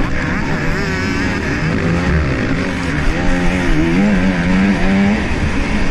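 Motocross bike engine running hard, its revs rising and falling again and again as the rider accelerates and shifts through a corner and down a straight. Heard from a helmet camera, with wind rushing over the microphone.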